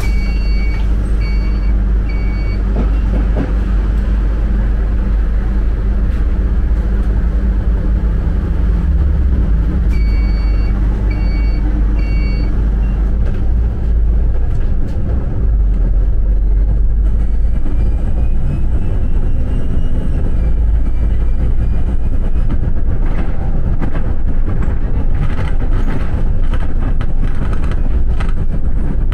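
Steady low engine and road rumble heard from inside a moving TransJakarta city bus. Twice, near the start and about ten seconds in, three short electronic beeps sound in quick succession, and near the end there is a run of short rattling clicks.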